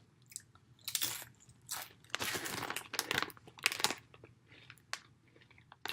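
A person crunching and chewing corn tortilla chips (black pepper steak flavoured Doritos) with the mouth close to the microphone: irregular crisp crunches in small clusters, bite after bite.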